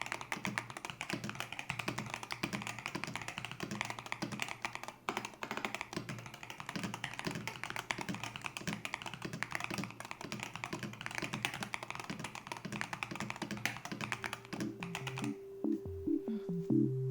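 Fast, continuous typing on an EWEADN Deep68 65% keyboard with Hall effect magnetic switches: a rapid run of key clicks. Near the end the typing stops and electronic music comes in.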